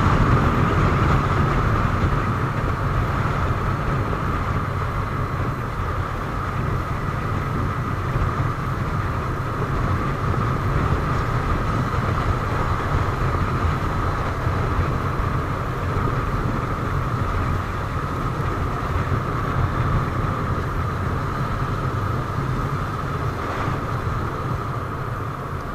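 Motorcycle riding at road speed, its engine and the rush of wind running steadily together with a constant drone and no gear-change bursts. The sound eases slightly as the bike slows.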